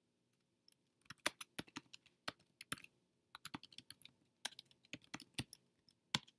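Typing on a computer keyboard: quick runs of key clicks, a short pause about three seconds in, then more keystrokes.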